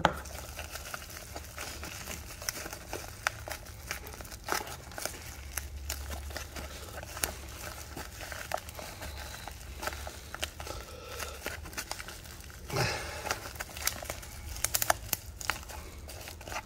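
Plastic bubble wrap crinkling and crackling as hands cut it with a small knife and pull it apart, in irregular bursts, louder about four and a half seconds in and again around thirteen seconds.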